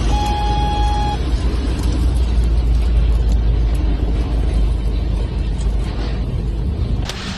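Storm-force wind buffeting the microphone, a heavy low rumble under a steady rushing noise. Near the start a steady tone sounds for about a second, and the sound changes abruptly near the end.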